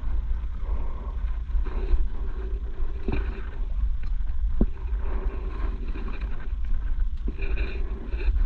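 Wind rumbling on the microphone over open water, under a faint steady engine hum, with three sharp clicks spread through the middle.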